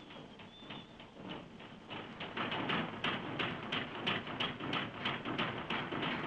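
Shipyard din fading in: metal hammering on steel in quick, even strokes, about three a second, over a general clatter that grows louder after a couple of seconds.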